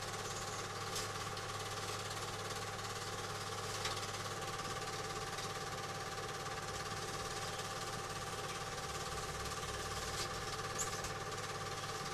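Film projector running with a steady mechanical whirr and rapid clatter, with a few brief clicks.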